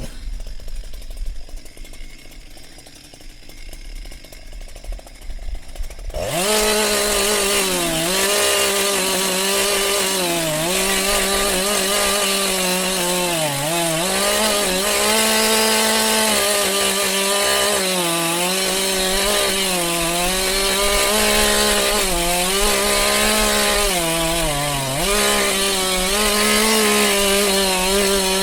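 Two-stroke chainsaw revving sharply to full throttle about six seconds in, after a few seconds of faint low rumble, then running flat out while cutting through wood, its pitch dipping briefly again and again as the chain bogs under load.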